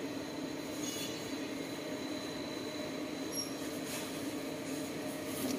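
A steady mechanical drone, even throughout, with a few faint clicks.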